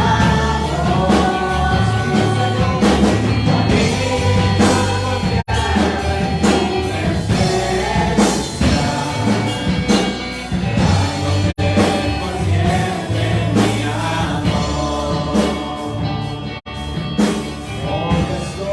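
Live worship music: singing with a full band, bass and drums.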